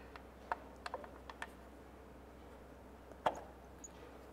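Light clicks and taps of a cam cover being handled and seated by hand onto an engine's cylinder head, with one louder knock about three seconds in.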